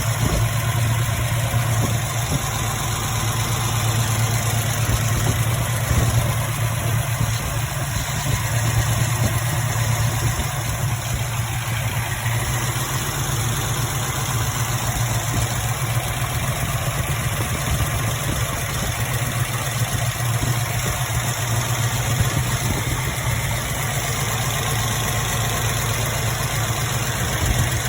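Car engine idling steadily, with an even low hum and no revving.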